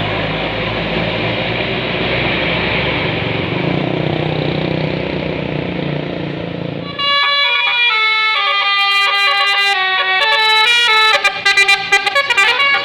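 A bus engine running with road noise, then, about seven seconds in, a tour bus's basuri telolet horn cuts in loudly, playing a multi-note melody that ends in a run of fast stuttered notes and a short pitch slide.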